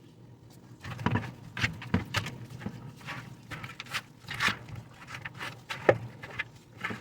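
A run of irregular knocks and clatters, a dozen or so at uneven spacing, starting about a second in, with the loudest sharp knock near the six-second mark.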